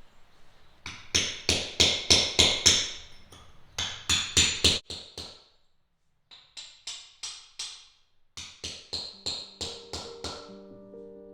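Background music with an even, tapping percussive beat of about three strikes a second; sustained melodic notes join in near the end.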